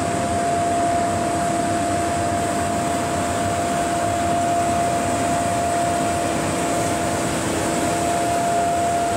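Isuzu Elf road sweeper truck at work, its engine and sweeping gear making a steady, loud rushing noise with a constant pitched hum over it.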